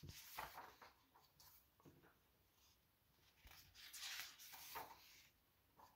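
Faint rustle of paper as a picture book's page is turned and handled, in two short spells: one at the start and one just past the middle.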